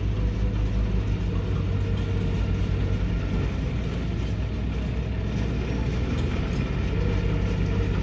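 Diesel engine of heavy earthmoving machinery running steadily with a deep drone. It eases a little midway and builds again near the end.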